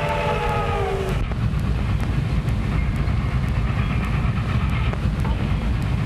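Steam locomotive whistle sounding a chord of several tones, cutting off about a second in, over the steady low rumble of the train running on the rails.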